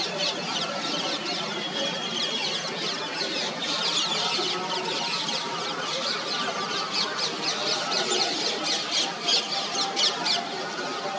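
Chorus of small birds in the trees chirping and chattering: many short, high, quickly falling calls overlapping, with a brief steady whistle about two seconds in.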